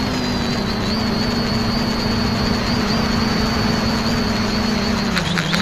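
X550AIOP quadcopter's four motors and propellers humming steadily in flight, heard from its onboard camera over a broad rushing noise; the pitch wavers slightly and dips about five seconds in as the throttle changes.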